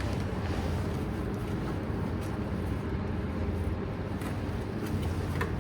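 A steady low hum, with a few faint light clicks in the second half.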